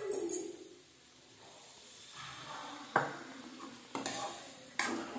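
Metal spoon scraping through chicken pieces in a metal kadai, with three sharp knocks of the spoon against the pan about a second apart in the second half.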